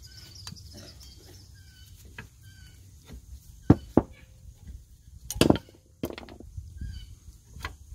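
Metal clinks and knocks of rear drum brake hardware (shoes, return springs and adjuster) being pried off the backing plate. A few sharp clanks come about four seconds in and again about five and a half seconds in, with lighter taps between.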